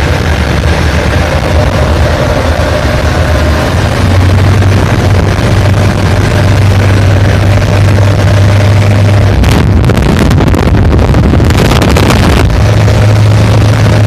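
Cadenazzi Super Como runabout's engine running steadily under way, a loud low hum that steps up in level about four seconds in. About two-thirds through, a few seconds of rushing noise from wind or spray come in over it.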